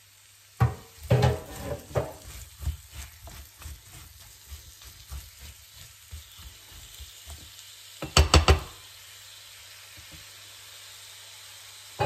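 Apple slices frying in butter and sugar in a frying pan while being stirred with a spatula: irregular scraping and knocking strokes for the first several seconds, a quick cluster of three sharp knocks about eight seconds in, then a steady sizzle.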